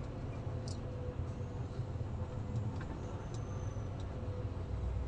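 Lorry's diesel engine and road noise heard from inside the cab while driving, a steady low rumble with a few faint ticks.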